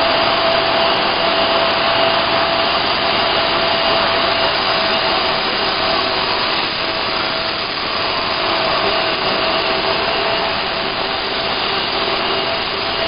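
CNC plasma torch arc cutting through a metal dished head: a loud, steady hiss with steady tones running through it.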